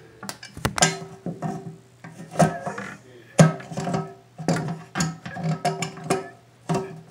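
Irregular metallic clicks and knocks from adjustable pliers working the toilet's supply-line nut, each followed by a brief ringing tone.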